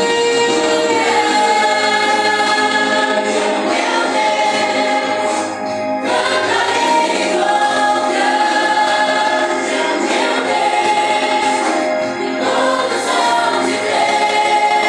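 A group of voices singing a gospel worship song together, holding long notes over instrumental backing.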